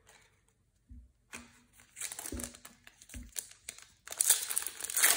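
Foil wrapper of a Panini Prizm basketball card pack being torn open and crinkled by hand, starting after a few soft knocks and getting loudest about four seconds in.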